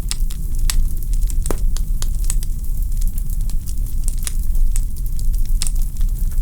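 Wood fire burning in a fireplace, crackling: irregular sharp pops and snaps over a steady low rumble.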